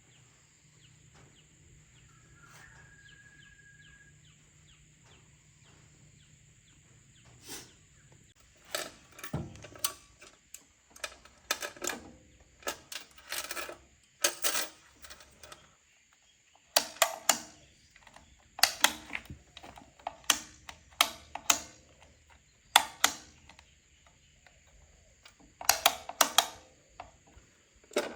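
Irregular short clicks and knocks in small clusters, like something being handled or adjusted, starting about a quarter of the way in; before that only a faint low hum.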